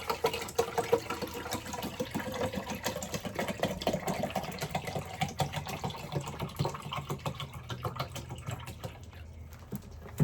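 Water being poured into the water tank of a Nespresso Vertuo Next coffee machine, a steady splashing, gurgling pour whose pitch creeps up as the tank fills. It tails off near the end.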